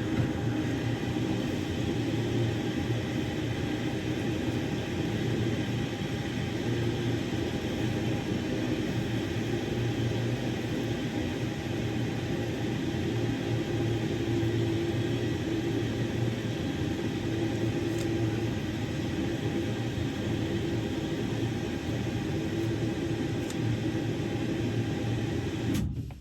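Samsung Grande washing machine running steadily during a quick-wash cycle, a constant machine hum with rushing noise, stopping suddenly near the end.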